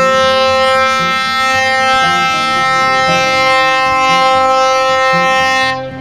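A tugboat's horn sounding one long, steady blast on a single note that cuts off near the end.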